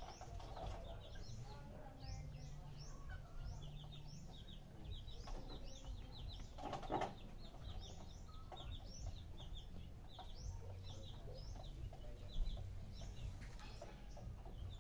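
Birds chirping: many short, high, falling chirps, several a second, over a faint low rumble, with a brief louder, rougher sound about seven seconds in.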